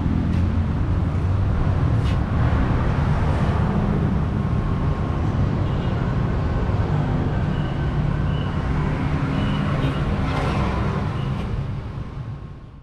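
Small 6.5 HP single-cylinder petrol engine running steadily, driving a disc-type grain grinding mill. It fades out near the end.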